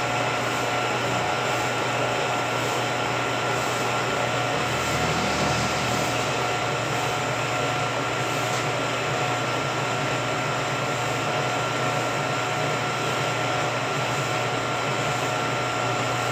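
Vertical milling machine running steadily, its motor and spindle humming with a constant whine as the cutter mills a keyway into the hub of a pump impeller.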